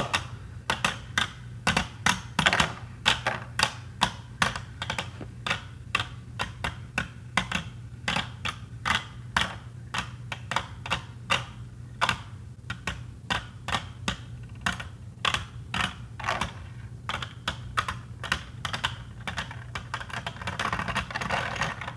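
Beyblade Burst tops, one of them a 3D-printed Erase Diaboros, spinning and clashing in a plastic stadium: rapid, irregular clicks and knocks, several a second, as the tops strike each other and the stadium wall.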